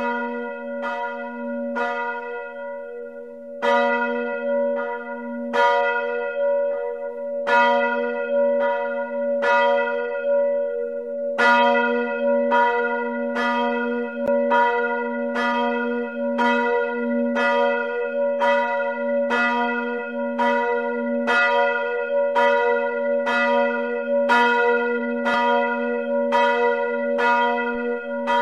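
Full peal of several church bells played on a bell-simulator program: the bells strike over a steady hum, overlapping and repeating. More bells join about four, six and eleven seconds in, until strikes come roughly twice a second.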